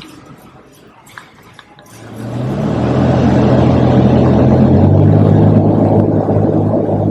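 A vehicle engine comes up loud about two seconds in and runs steadily, its pitch stepping up near five seconds as it is revved or shifts.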